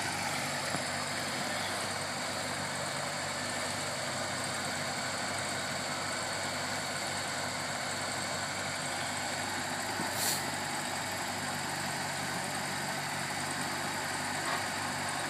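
Land Rover Series engine idling steadily, with one brief high hiss about ten seconds in.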